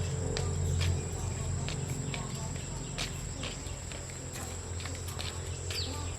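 A steady high-pitched insect trill, like crickets, over a steady low hum, with scattered light clicks and taps.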